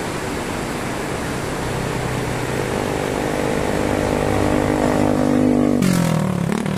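A motor vehicle's engine approaching and passing close by. Its hum grows louder, then drops in pitch as it goes past about six seconds in. Under it runs the constant rush of a fast-flowing river over rocks.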